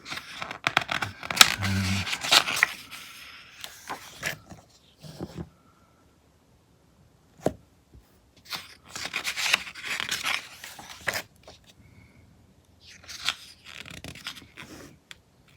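Pages of a glossy magazine being turned and handled, rustling in several spells, with a single sharp tick about seven and a half seconds in.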